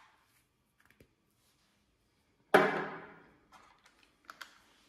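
A single sharp knock about two and a half seconds in, ringing briefly as it fades, followed by a few faint clicks.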